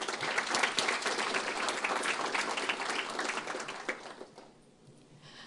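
Audience applauding, thinning out and dying away about four seconds in.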